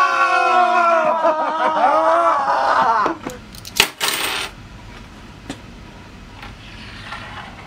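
A long, loud yell, its pitch sliding slowly down, cuts off about three seconds in. About a second later, a handful of coins clatters onto a wooden table.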